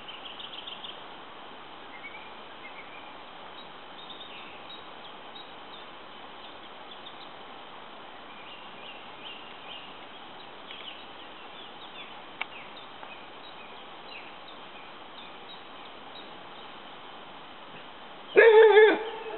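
Quiet outdoor ambience with faint, scattered bird chirps and one sharp click about twelve seconds in. Near the end, a loud, drawn-out call in a person's voice.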